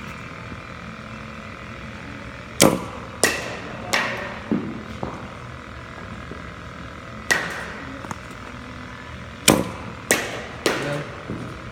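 Batting practice: a string of sharp cracks and knocks as a bat meets pitching-machine balls and the balls strike the cage, each ringing on in the large echoing room. They come in three bursts of quick hits.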